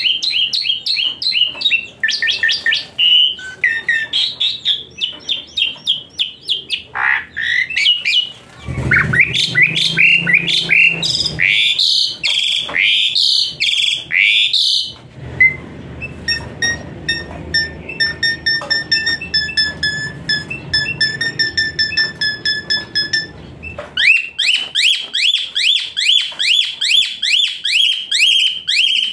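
Javan pied starling (jalak suren) singing a rapid, varied song of whistles and chirps. Midway it gives a stretch of evenly repeated short notes, and near the end it switches to a quick run of rising chirps.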